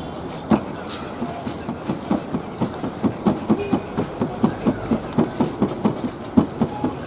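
Palms rhythmically patting and slapping a round of oiled flatbread dough out thin on a steel table, soft knocks about three a second starting a second or so in.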